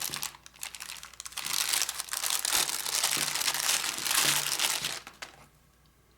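Phone packaging crinkling and rustling as it is handled, stopping about five seconds in.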